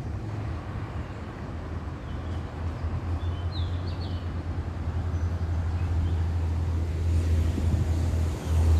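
Low, steady drone of an approaching diesel train locomotive, growing louder toward the end. A few short high chirps come about three and a half seconds in.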